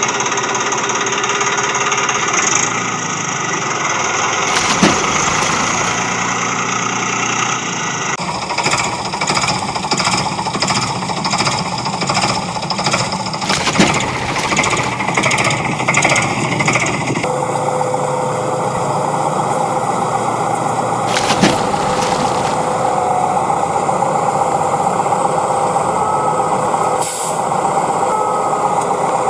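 Vehicle engine or motor noise running steadily, with a rattling, jackhammer-like rhythm; it changes character abruptly several times, with a few sharp clicks.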